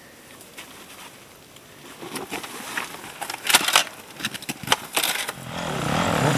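Dry brush branches snapping and cracking in a scattered run of sharp cracks as a dirt bike pushes through bushes. Near the end, a dirt bike engine comes in and rises in revs.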